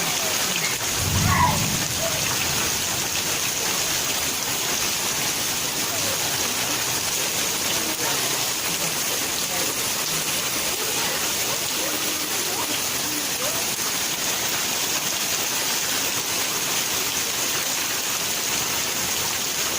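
Steady heavy rain, an even hiss that holds without a break, with a brief low rumble about a second in.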